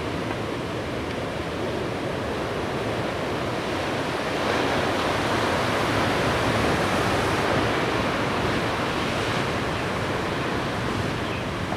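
Heavy ocean surf: large waves breaking and whitewater rushing in a steady wash of noise that swells louder about halfway through.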